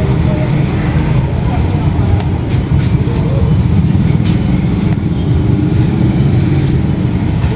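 Motorcycle engine running with a steady low rumble, with a few light clicks over it.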